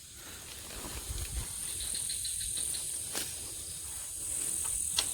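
Night insects such as crickets chirping, a steady high-pitched shrill with a brief run of rapid ticks about two seconds in. A couple of sharp clicks and some low handling rumble sound beneath it.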